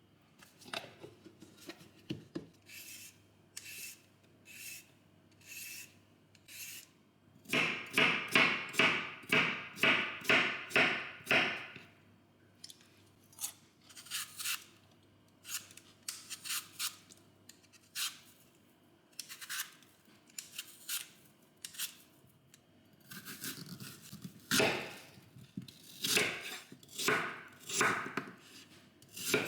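Food being cut, a series of short cutting strokes, with a quicker, louder run of cuts about a quarter of the way in and another cluster near the end.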